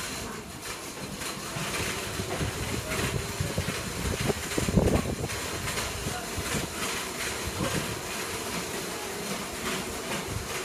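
A wave tank's motor-driven wave maker running, with repeated knocks and water rushing in the tank; loudest about five seconds in.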